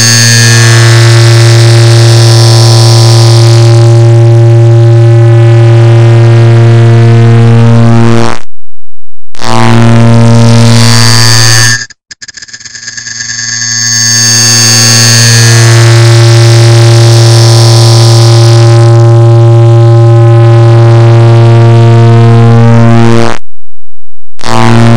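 Very loud, distorted electronic buzzing drone made from a clock tick sped up until the ticks merge into one low tone with stacked overtones. It stops for about a second twice, about 8 seconds in and near the end, and dips for an instant about 12 seconds in before building up again.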